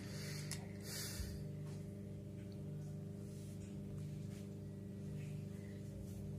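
A steady low hum with a slow pulse about once a second, the loudest thing throughout. Over it, a short rustle about a second in and a few faint clicks as a spinning reel is handled.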